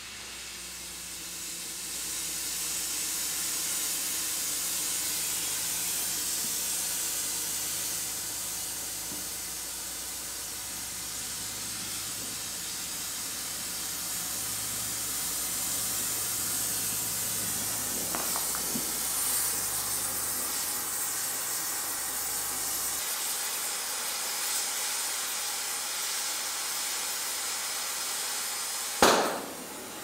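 Oxy-acetylene torch with a multi-flame rosebud heating tip burning with a steady hiss, growing louder over the first couple of seconds, while it heats steel. One sharp, loud pop near the end.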